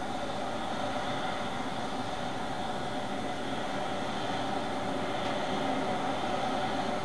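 Boeing 777-300ER's GE90 jet engines running at low taxi thrust: a steady whine over a rushing noise, swelling slightly about five seconds in.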